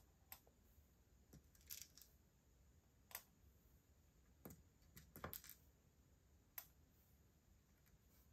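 Faint, scattered small clicks of metal tweezers picking plastic fuse beads out of a plastic compartment box and setting them on a pegboard, with a quick cluster of taps about five seconds in.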